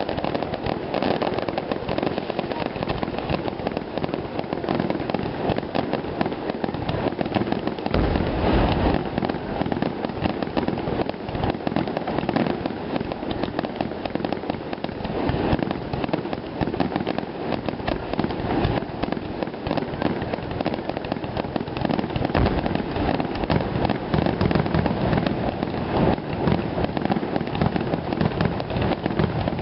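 Fireworks finale: a rapid, continuous barrage of shell bursts and crackling with no pause, and a deeper heavy boom about eight seconds in.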